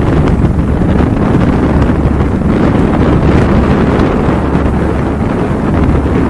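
Wind buffeting the microphone, a loud steady rumble, over the low drone of a ferry's engine.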